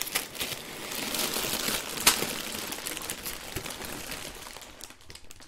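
Packaging rustling and crinkling as a LEGO set's box is opened and its contents handled, with one sharp knock about two seconds in.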